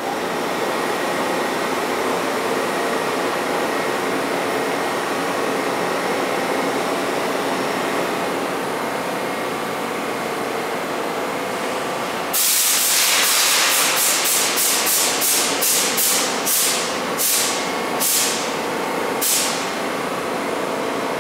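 Bombardier-built R62A subway train standing in the station, its onboard equipment giving a steady hum. About twelve seconds in, a sudden loud hiss of compressed air being vented breaks out, followed by a string of shorter hisses that come further and further apart and die away.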